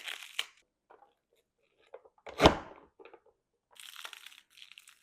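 Crisp romaine lettuce crunching and tearing as it is pressed through the blade grid of a push-down vegetable chopper. There is a crackling crunch near the start, a single loud thump of the chopper lid being pressed down about two and a half seconds in, and more crunching near the end.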